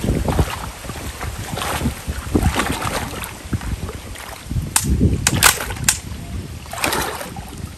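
Irregular splashing and sloshing of water, with several sharp clicks about five seconds in.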